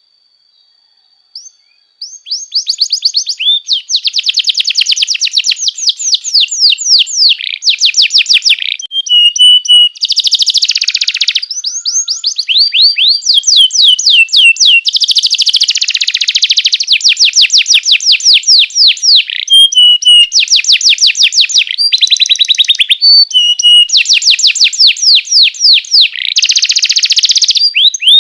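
Domestic canary singing: long, fast trills of repeated high chirps, phrase after phrase with brief changes of note, starting about two seconds in.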